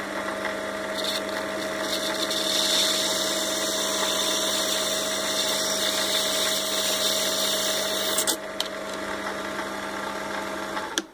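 CL250M mini lathe running with a steady motor hum while a wet diamond file grinds into a spinning borosilicate glass test tube with a high gritty hiss. The grinding stops about eight seconds in as the tube is cut through. Near the end the lathe switches off with a click and the hum cuts out.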